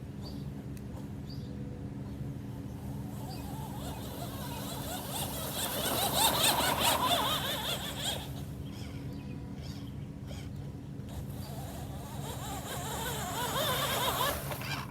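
Large radio-controlled monster truck driving, its motor whine and tyre noise swelling twice as it comes close, around six seconds in and again near the end.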